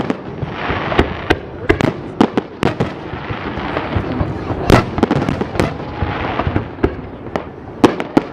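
Fireworks display: more than a dozen sharp bangs of bursting shells in quick, irregular succession, over a rushing haze of noise. The loudest bang comes a little past halfway.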